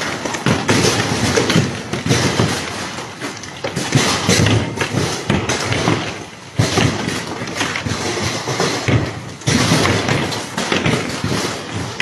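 Heavy hail pelting down: a dense, irregular clatter of hailstones striking hard surfaces, with frequent louder thuds from the larger stones over the steady rush of the storm.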